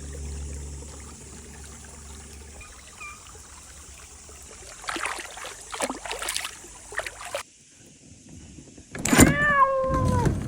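Some knocking and rustling, then a loud, high squeal near the end that slides down in pitch and holds for about a second before stopping abruptly, like a dry hinge or a rubbing part.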